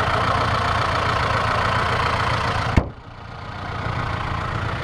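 Lada Niva's 1.7-litre engine idling with the bonnet open. About three seconds in the bonnet is slammed shut with one sharp bang, and the engine then sounds suddenly duller and quieter.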